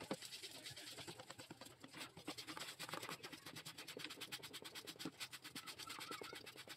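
Wire hand whisk beating flour into chocolate cake batter in a plastic bowl: quick, evenly repeated scraping strokes of the wires against the bowl and through the thick batter.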